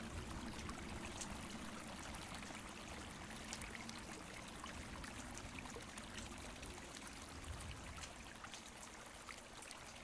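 Small rocky creek splashing down a low cascade: a faint, steady rush of water.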